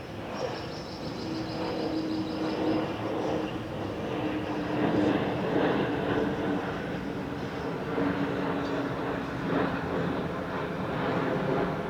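Airbus A321neo's CFM LEAP-1A32 turbofans running steadily on the ground: a continuous jet roar with a steady mid-pitched hum. A faint high whistle falls slightly and fades after about three seconds.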